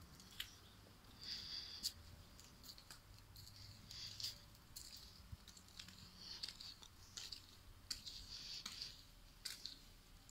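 Faint footsteps on stone paving and steps, with scattered sharp clicks about once a second and short hissy rustles every second or two.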